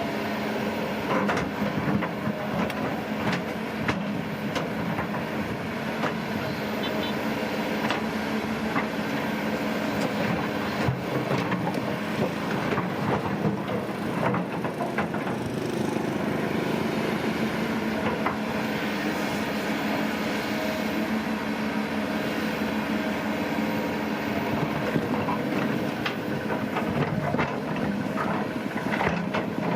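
Heavy earth-moving machinery at work: a diesel engine running steadily, with frequent clanks and knocks scattered throughout.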